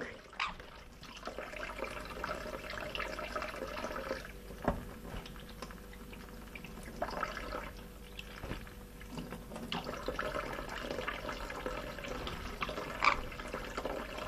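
Water running from a tap and splashing steadily as a sun conure bathes under the stream, with a few brief sharper splashes.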